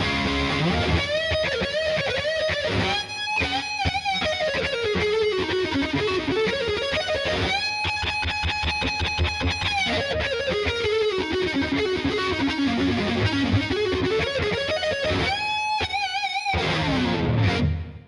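Gibson Les Paul Tribute '70s electric guitar playing a distorted lead line with string bends and vibrato, holding one long note about halfway through. The playing stops abruptly right at the end.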